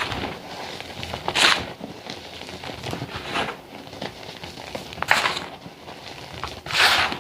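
A block of gym chalk mixed with sand being crushed, giving squeaky, crunchy crumbles. There are four louder crunches about every one and a half to two seconds over a softer crumbling rustle.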